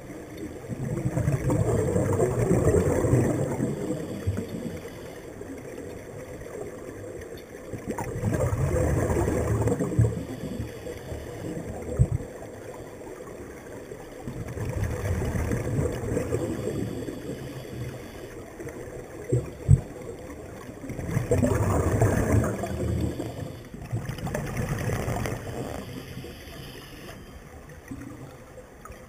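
Scuba diver's regulator exhaust bubbling underwater, gurgling bursts of two to three seconds about every six seconds with the breathing. A couple of sharp clicks come between the bursts.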